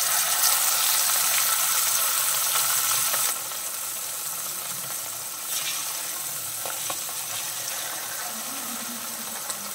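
Hot oil sizzling loudly as a masala-coated whole fish is laid in to fry, followed by a second fish. The sizzle drops abruptly about three seconds in and carries on steadily.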